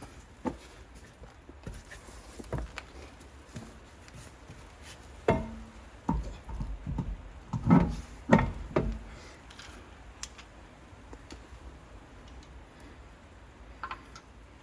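A series of knocks and clunks, loudest in a cluster about five to nine seconds in: tools and parts being handled during a car brake job.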